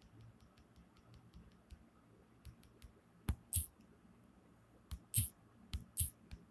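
Rapid light fingertip taps on a smartphone touchscreen, about five a second, paging a calendar back month by month; they stop about three seconds in, and a few louder scuffs of the hand handling the phone near its microphone follow.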